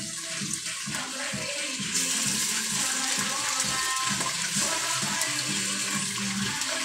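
Steady rush of running water, getting louder about two seconds in, with background music underneath.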